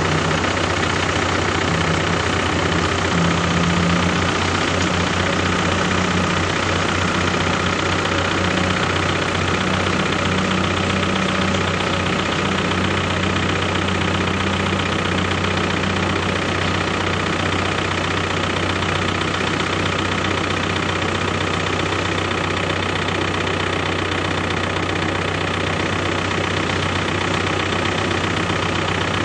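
A vehicle engine running steadily at a near-constant pitch, with a low pulsing during roughly the first dozen seconds that then smooths out.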